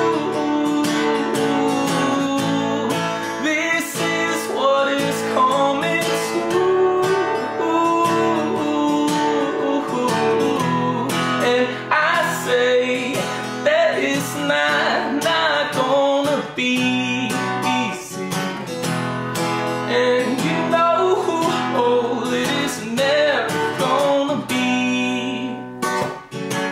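Acoustic guitar strummed in a steady rhythm, an instrumental break between verses of a solo folk song; the chords move lower about ten seconds in.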